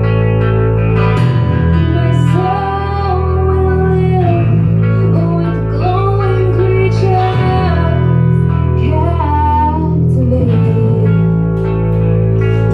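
A live band playing a song: a sung melody comes in about a second in over guitar and sustained deep bass notes that change every few seconds.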